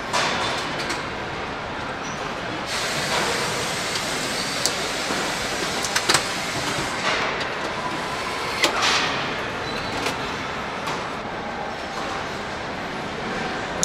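Automated engine-machining line running: a steady mechanical din with a few sharp metallic clanks, two close together about six seconds in, and a brief hiss shortly after another clank.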